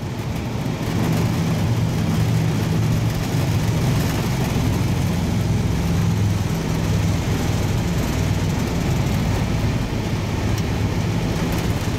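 Steady low rumble inside an Airbus A320 cockpit during the landing roll: engine noise and the airliner's wheels running on the runway, with a low hum that comes in about a second in.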